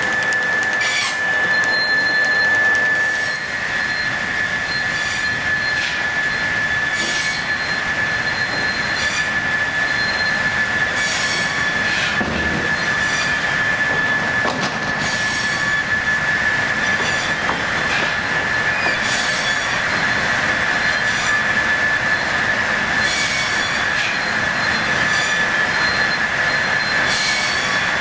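Steam-driven sawmill machinery running: belts, shafts and roller conveyors giving a steady high-pitched squeal, with a sharp metallic click about every two seconds.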